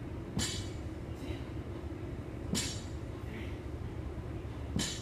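A person breathing hard in a steady rhythm: a sharp, loud exhale about every two seconds, with fainter breaths between, over a steady low hum.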